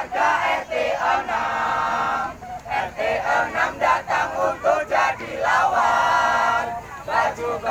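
A marching troupe chanting and shouting together in unison, with two long, drawn-out group shouts.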